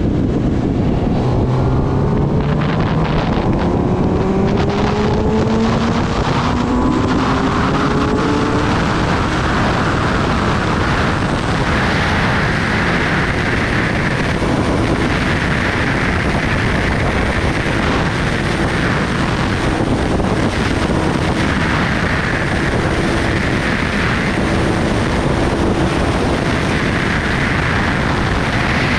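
Kawasaki Ninja ZX-10R's inline-four engine accelerating hard through the gears, its pitch rising and falling back at each upshift over the first nine seconds or so. It then settles into a steady run at speed, with heavy wind rushing over the microphone.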